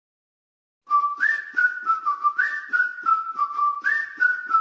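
Intro music: a whistled melody over a steady beat of about three strokes a second, starting about a second in.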